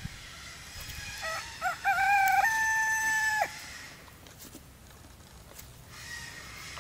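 A rooster crowing once, about a second in: a few short rising notes, then a long held note that falls away at the end.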